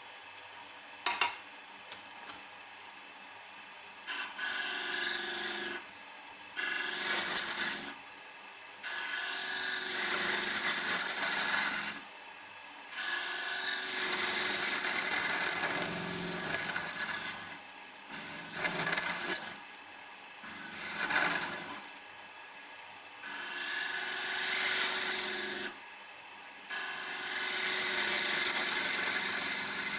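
Homemade turning chisel cutting a spinning wood workpiece on a wood lathe: repeated passes of rough scraping, each one to three seconds long with short pauses between. A sharp knock about a second in is the loudest sound.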